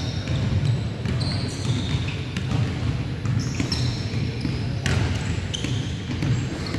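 Basketballs bouncing on a hardwood gym court, with sneakers squeaking in short high chirps and a louder bang about five seconds in. Voices murmur in the background.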